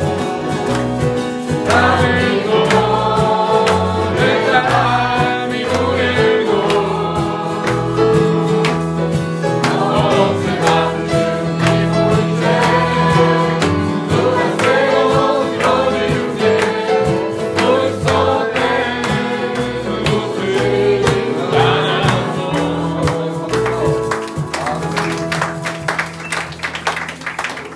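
Polish Christian song: voices singing over instrumental accompaniment, fading out over the last few seconds.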